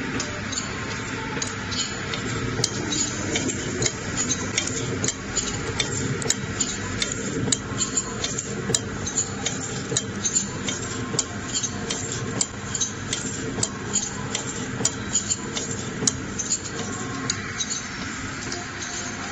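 Small vertical form-fill-seal granule packing machine with a volumetric cup filler, running. A steady mechanical hum under rapid, uneven clicking and clacking from its moving parts as it forms, fills, seals and cuts sachets.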